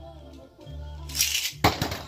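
A Beyblade launched into a plastic stadium: a short zip of the launcher about a second in, then one sharp clack as the top hits the stadium, over steady background music.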